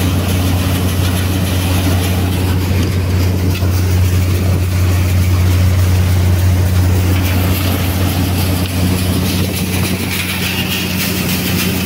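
Tractor-driven thresher running steadily while threshing mung bean plants: a constant deep engine hum with an even noisy wash from the machine over it.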